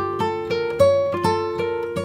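Background music of plucked notes picked in quick succession, each ringing and fading.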